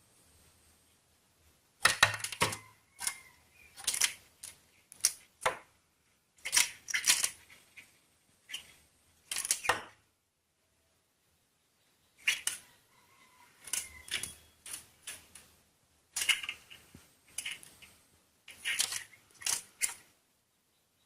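A woodpecker pecking and striking at its own reflection: bursts of sharp taps and knocks in quick succession, with a pause of about two seconds in the middle.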